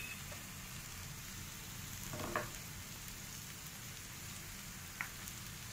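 Corn, paneer and chopped vegetables frying in a nonstick pan: a faint, steady sizzle, with a small click about five seconds in.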